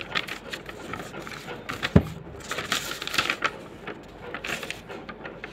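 Sheets of lined notebook paper rustling and crinkling as they are handled and unfolded, with one sharp knock about two seconds in.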